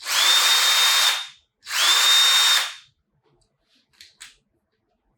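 Homemade 20 V cordless drill run twice in short bursts of about a second each. Each time the motor's whine rises quickly to a steady high pitch and then stops. Two faint clicks near the end.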